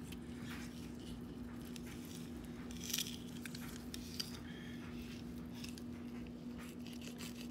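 Fillet knife cutting through a fish's flesh and scraping along its spine and the cutting board: soft wet cuts and light scrapes, with a louder scrape about three seconds in. A steady low hum runs underneath.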